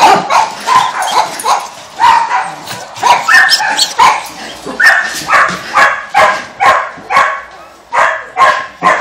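Shelter dogs in barred kennels barking over and over, loud sharp barks coming about twice a second.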